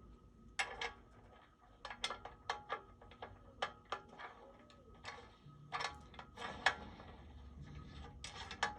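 Irregular light metal clicks and clinks from a bottom bracket cup press tool being slid through a BMX bottom bracket shell and its parts fitted together.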